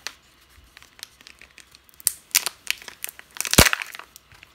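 Foil wrapper of a Kinder Joy egg crinkling and tearing as it is peeled off, sparse at first and busier after about two seconds, with one sharp crack about three and a half seconds in.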